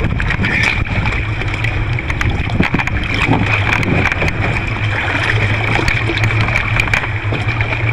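Water sloshing and splashing out of a swamped kayak as it is tipped to empty it, over a steady rush of water and wind.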